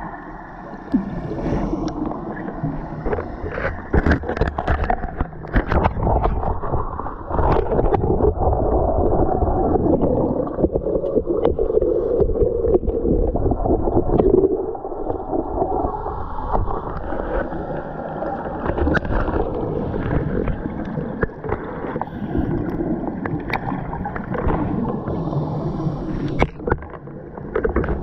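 Muffled underwater noise at a shipwreck dive: bubbling gurgles over a low rumble, louder for several seconds in the middle, with scattered clicks.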